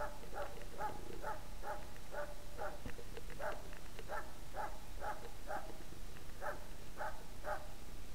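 Hunting dog barking steadily, short sharp barks about two a second with a brief pause a little past halfway: the continuous bay bark of a dog holding game.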